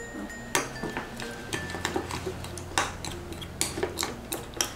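Metal spoon clinking and scraping against a glass bowl while stirring thick, gluey slime, in irregular clicks and knocks.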